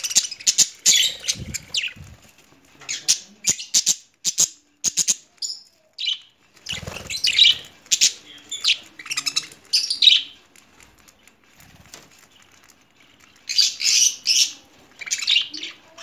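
Flock of budgerigars chirping in bursts of rapid chatter, with short pauses between bursts, and a brief flutter of wings about seven seconds in.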